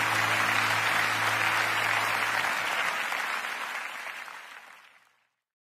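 Audience applause, a dense clapping that fades out about five seconds in, while the last low held note of the music dies away under it about halfway through.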